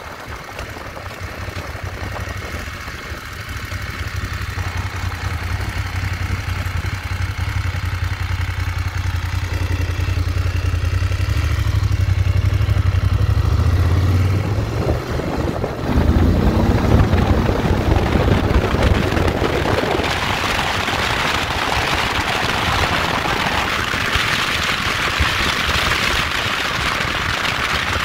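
BMW motorcycle engine pulling away and accelerating, its low hum building over the first fourteen seconds with a brief dip around fifteen seconds. From about twenty seconds a steady rush of wind at road speed takes over.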